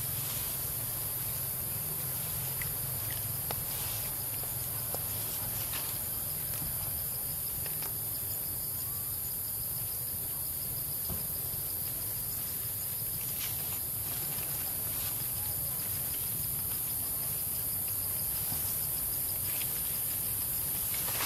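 Steady, high-pitched insect chorus shrilling without a break, over a low rumble, with a few faint clicks scattered through it.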